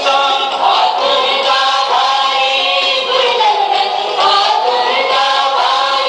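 A group of voices singing together in a Sindhi stage opera, holding long notes that glide from pitch to pitch.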